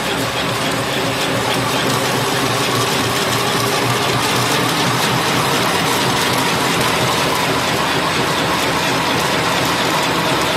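Single-straw paper wrapping machine running steadily, a continuous mechanical clatter of rapid ticks over an even hum.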